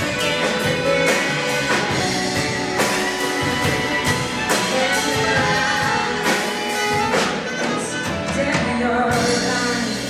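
Live jazz band: a woman singing into a microphone, backed by a section of saxophones.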